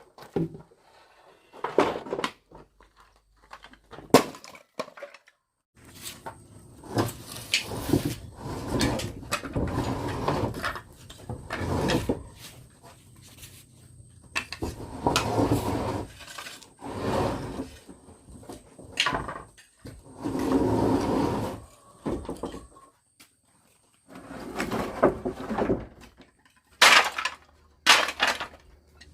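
Repeated sharp knocks and clatter, broken by several stretches of a second or two of scraping or rustling noise, as materials are handled during repair work.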